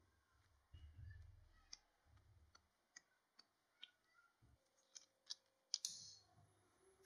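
Faint clicks and soft low thumps of a cotton cloth being pressed and rubbed over raw potato slices to wipe them dry, about a dozen small clicks spread through.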